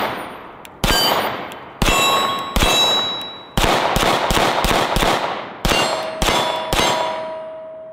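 SAR9 X 9mm pistol firing about eleven shots, the first few about a second apart and the rest quicker, with steel targets ringing after the hits.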